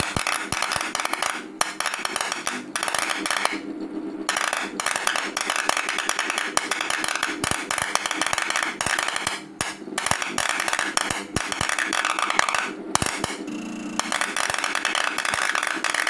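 Homemade CNC EDM's copper electrode arcing against an aluminium plate under water: a dense, rapid crackling of sparks that drops out briefly a few times.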